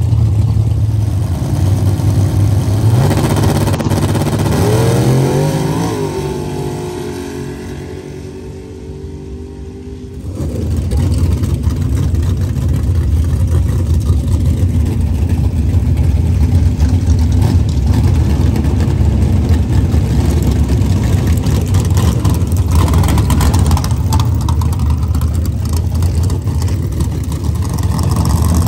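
A drag-racing vehicle's engine revs hard as it pulls away, its pitch rising with a couple of dips and fading into the distance. About ten seconds in, a loud, steady, low engine rumble cuts in abruptly.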